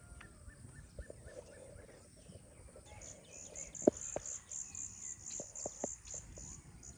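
Faint outdoor ambience with a rapid series of high chirps, about four a second, starting about three seconds in and stopping near the end. A single sharp knock sounds near the middle.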